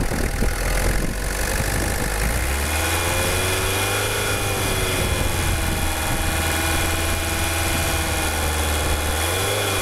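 Diesel engine idling steadily while it runs on injector-cleaning fluid fed from a small bottle instead of the tank, during a cleaning of the injector circuit. The hum settles and steadies about two seconds in.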